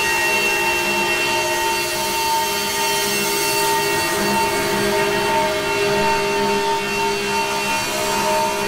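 Soundtrack drone: a dense cluster of many held tones under a steady hiss, with no beat or melody.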